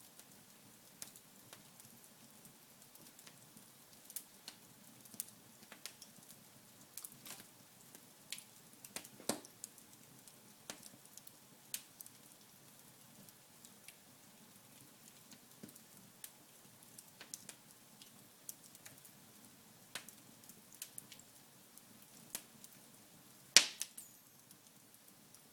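Wood fire burning in a fireplace: scattered irregular crackles and pops over a faint low hiss, with one loud pop near the end.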